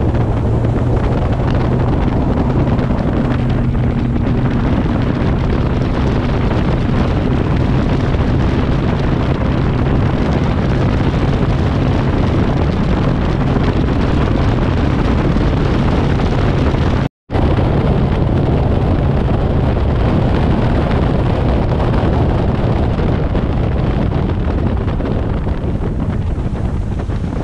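Bass boat's outboard motor running at speed under heavy wind buffeting on the microphone, with water rushing past the hull. The sound cuts out completely for an instant about two-thirds of the way through.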